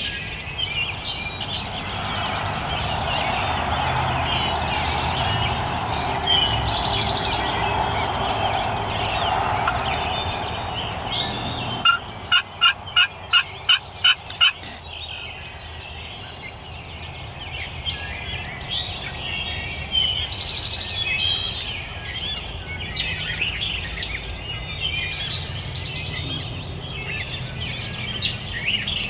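Hen turkey yelps made on a pot-style friction call with a striker: a run of about eight evenly spaced yelps around the middle, with songbirds singing throughout.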